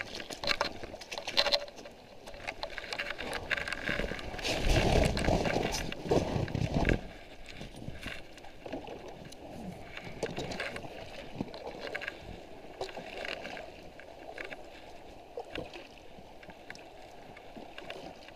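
Paddling an inflatable packraft on a stream: the paddle splashing in the water, with knocks and rubbing against the raft, loudest and most jumbled from about four to seven seconds in, then quieter, irregular strokes.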